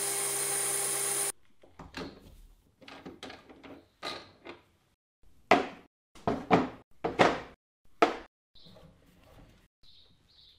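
A lathe taking a boring cut inside a metal gear blank runs steadily for about a second, then stops abruptly. Then comes a series of knocks and thunks as metal gear blanks are handled and set down on a wooden workbench, the loudest few near the middle.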